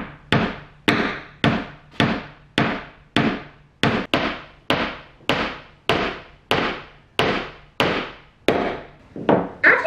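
Claw hammer with a wooden handle driving a small nail into a thin wooden kit panel: a steady run of about seventeen light strikes, roughly one every 0.6 seconds.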